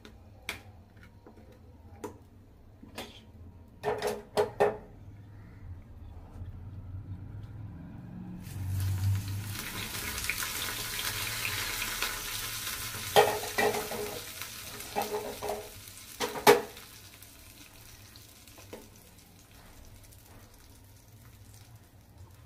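A few metal clinks of a small pan against a steel bowl. About eight seconds in, a sizzle starts as hot tempering oil (tadka) with cumin and ajwain seeds is poured over cold yogurt. More clinks come in the middle of the sizzle, which dies away a little after that.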